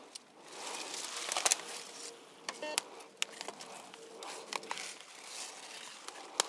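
Dry fallen leaves crunching and rustling underfoot and against a metal detector's search coil as it is swept through the leaf litter, with a few sharp snaps of twigs or brittle leaves.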